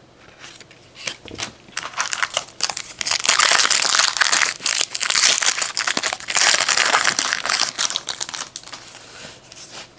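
Foil trading-card pack wrapper crinkling loudly as it is torn open and handled, most intense in the middle of the stretch.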